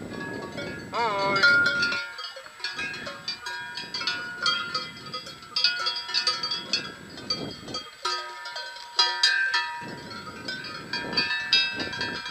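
Several cowbells clanking irregularly on cows grazing close by, with overlapping ringing tones of different pitches. A short wavering animal call sounds about a second in.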